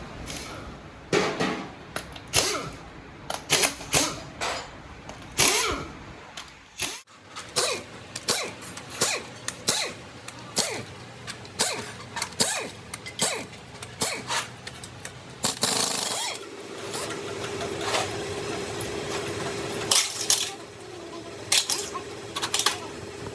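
Repeated sharp metallic knocks and clinks of tools and metal parts being handled while a truck gearbox is worked on. A steady hum joins them about two-thirds of the way through.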